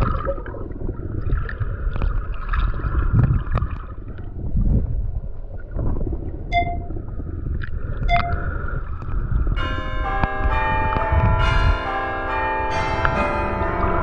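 Low handling noise with scattered clicks and knocks, then a short ringing ping twice. About ten seconds in, bell-like chiming music begins: many overlapping ringing tones.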